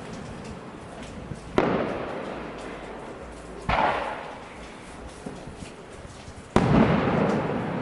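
Fireworks bursting overhead: three loud booms about two seconds apart, each trailing off in a long fading rumble, with fainter pops between them.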